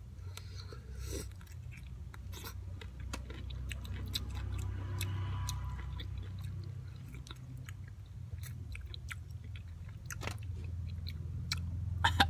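A person chewing and biting into whole raw calamansi fruits, with wet clicks and smacks of the mouth throughout. A steady low hum lies underneath, and a short louder sound comes from him near the end as his mouth opens wide at the sour taste.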